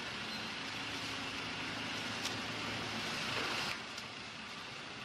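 Ricardo diesel engine generator set running steadily, a noisy hum with a faint low drone; the hiss drops away suddenly about three-quarters of the way through.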